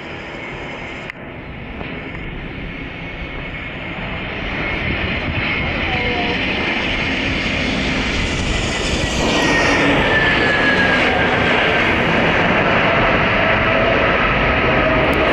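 Airbus A320 jet engines rushing as the airliner approaches and lands, growing louder over several seconds. About nine seconds in, after touchdown, the sound jumps louder and stays loud while a faint whine falls in pitch.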